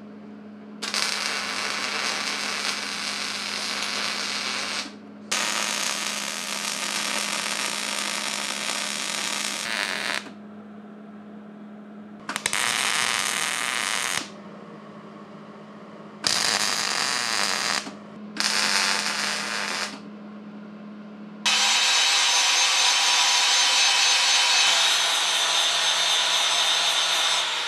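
MIG welder laying short weld runs on steel bar, five separate bursts of crackling arc noise a few seconds each, with a steady hum from the welder between them. About three-quarters of the way in, an angle grinder starts up and runs continuously, grinding the steel.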